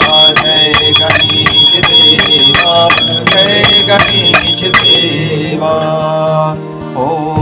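Devotional music with a voice singing and a small bell ringing rapidly in quick even strokes. The bell stops about five seconds in, leaving the voice over the music.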